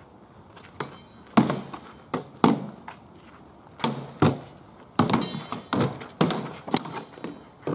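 Swords striking round wooden shields and clashing against each other in a fast exchange. About a dozen hard, irregular knocks come in quick bursts, and a few of them ring on briefly.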